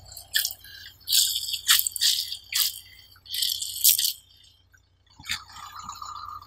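Mesh stress ball full of water beads squeezed hard in the hand: a run of crackling squishes from about one to four seconds in as the beads press through the netting and some pop out. A couple of light knocks follow a little after five seconds.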